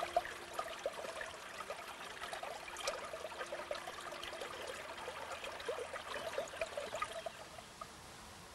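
Water from a pressure spring welling up out of sandy ground, softly gurgling and bubbling. It grows quieter near the end.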